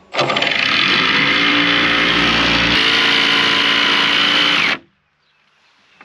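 Electric power saw running and cutting plywood: a steady high whine that starts suddenly, shifts in pitch about halfway through, and stops abruptly after about four and a half seconds.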